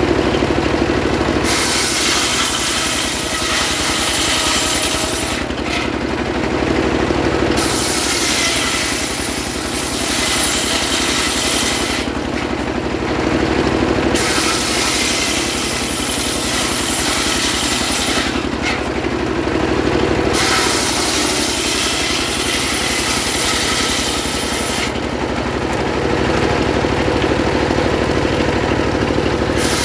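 Homemade circular saw table driven by a stationary diesel engine, ripping trembesi (rain tree) wood: the blade cuts through the plank four times, each cut lasting about four to five seconds, with only the steady engine heard in the gaps and at the end.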